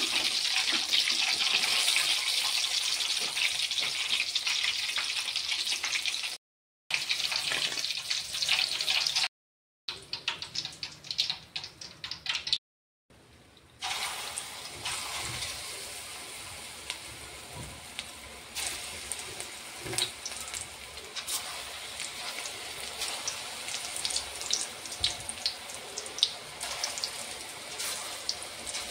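Battered ridge-gourd fritters deep-frying in a wok of hot oil: a loud, steady sizzle, cut by a few brief silent gaps, then a quieter sizzle dotted with sharp crackles and pops from about halfway on.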